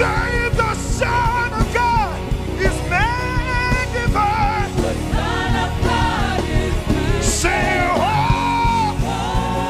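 Live gospel worship music: a singer's voice gliding and holding notes over a full band with keyboard, bass and drums keeping a steady beat.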